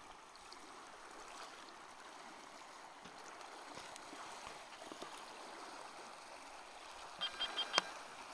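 Small waves gently lapping on a gravel lakeshore, a faint steady wash of water. Near the end a few short high chirps and a sharp click.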